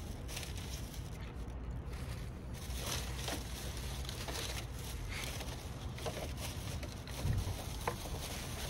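Outdoor parking-lot ambience: a steady low rumble with scattered small ticks and taps, and a brief louder knock about seven seconds in.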